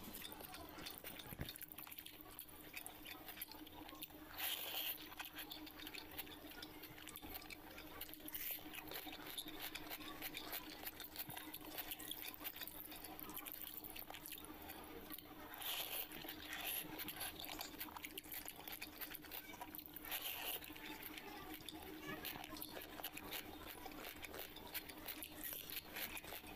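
Close-miked hand eating of water-soaked rice (panta bhat): fingers squishing and mixing wet rice with a steady run of small wet clicks and drips, and mouth sounds of chewing, with a few louder moments. A faint steady hum sits underneath.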